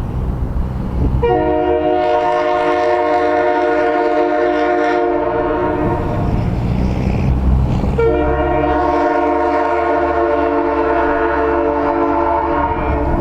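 Leslie Supertyfon air horn sounding two long blasts of about five seconds each, a chord of several steady notes, with a short gap between them. A low rumble runs underneath.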